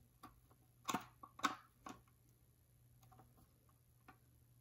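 Several light clicks and knocks of a 3D-printed plastic panel and a screwdriver being handled, the loudest about a second and a half in.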